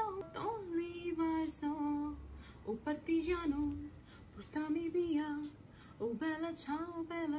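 A woman's voice singing in short phrases of held notes, with brief pauses between them.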